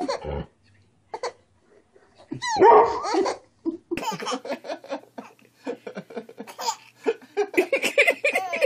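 A baby laughing in short repeated bursts while a small dog barks.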